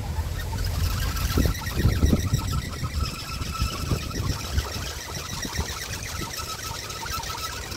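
Outdoor wind rumbling on the microphone, gusting harder about a second in, over a fast, even, high-pitched pulsing.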